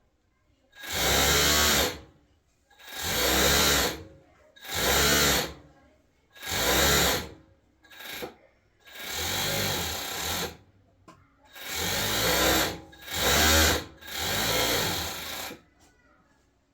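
Electric sewing machine running in about eight short bursts of one to two seconds each, every run swelling up and dying away, with brief pauses between.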